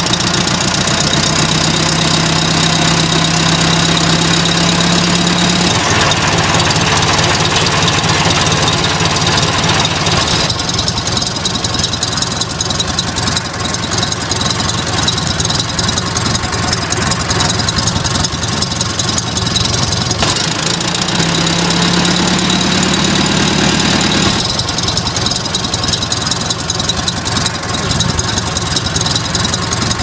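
A motor running steadily under load, with a low hum and a thin high whine; its sound shifts several times.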